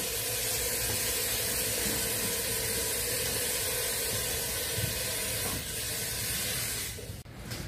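A steady hissing noise that cuts off abruptly about seven seconds in.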